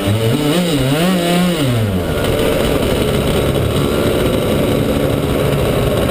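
Racing kart engine revved up and down a few times in the first two seconds, then running steadily at low speed as the kart rolls along.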